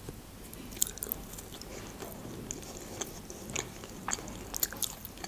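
Eating potato wedges: soft, irregular chewing and biting with scattered small mouth clicks.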